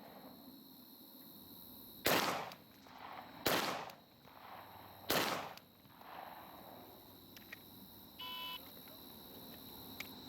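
Three pistol shots about one and a half seconds apart, each with a short echo. Near the end there is a brief electronic beep.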